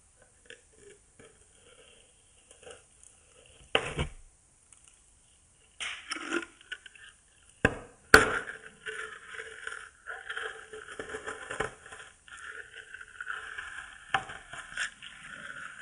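Close-miked biting and chewing of a sugar-coated jelly marmalade and meringue candy on a stick: wet crackling mouth sounds with sharp crunches, one about four seconds in and the loudest just after eight seconds, the crackling growing denser in the second half.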